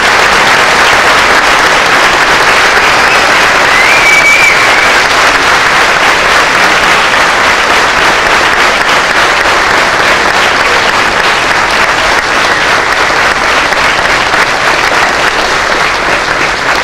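A large congregation applauding loudly and steadily, a long sustained round of clapping.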